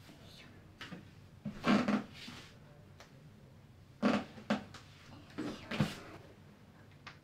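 Clothes being taken off and handled: a few short rustles and soft knocks in three clusters, about a second and a half in, around four seconds in, and near six seconds in.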